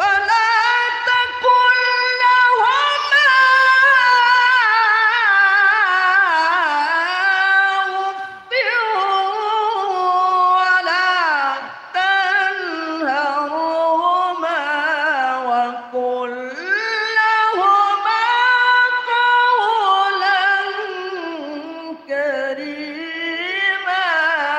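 A man's voice reciting the Quran in melodic tilawah style through a microphone. He sings long, high-pitched melismatic phrases with wavering, ornamented pitch, breaking briefly between phrases about 8, 12, 16 and 22 seconds in.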